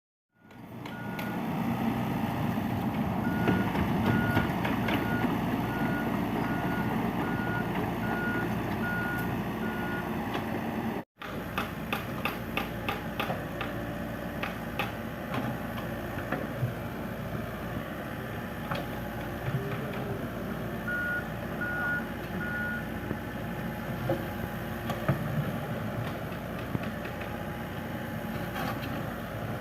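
Excavator engine running steadily while its travel alarm beeps about twice a second, stopping and starting again later, with scattered sharp knocks over the engine noise.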